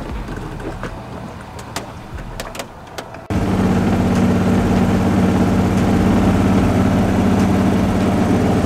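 Boat's outboard motor running. For the first three seconds it sounds quieter, with scattered clicks; then a loud, steady engine drone with a low hum starts abruptly and holds.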